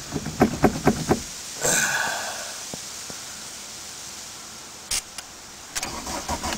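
A few sharp clicks and a short breathy hiss, then near the end the starter begins cranking the 1981 VW Rabbit's four-cylinder diesel engine. It is a rhythmic chug of about five strokes a second, a cold start after glow-plug preheating on a car that has sat for four months.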